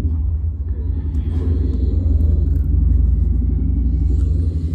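A loud, steady low rumble that swells in the middle and eases slightly near the end.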